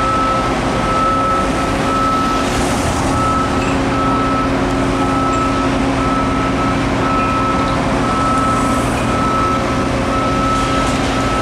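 A construction machine's warning beeper sounding steadily, about one beep a second, over an engine running.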